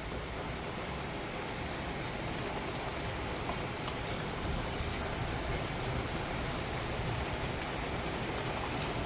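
Heavy rain pouring down steadily in a thunderstorm: a dense, even hiss of rain with a few sharper drop ticks.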